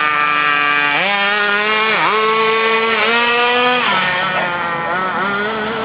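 Small nitro RC car engine running at high revs with a high, buzzing whine. The pitch dips sharply and recovers about once a second as the throttle is blipped, then drops lower about four seconds in.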